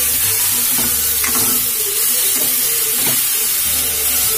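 Chopped onion, green chillies, tomato and okra sizzling in hot oil in a metal pot while a metal spoon stirs them, with a steady hiss and a couple of spoon knocks against the pot.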